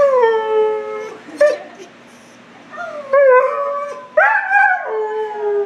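Husky howling in several drawn-out calls that waver and fall in pitch, with short breaks between them.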